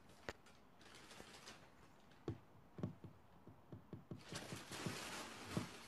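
Faint scattered light taps and paper rustling from a cat moving about with a paper bag over its head, with a steadier rustle starting about four seconds in.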